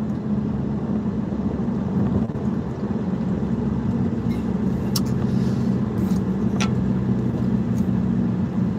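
Steady cabin noise inside an Audi A3 cruising on a freeway: a low, even drone of engine and tyres on the road.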